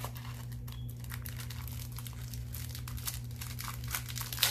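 Packaging crinkling and rustling as a planner sticker kit is handled, with a louder crinkle near the end. A steady low hum runs underneath.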